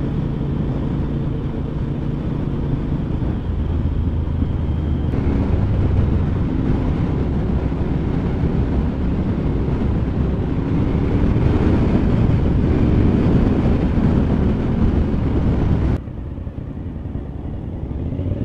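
Motorcycle engine running at road speed, with wind rush over it and the engine note rising and falling slowly. The sound changes abruptly about five seconds in and again near the end, where it drops quieter.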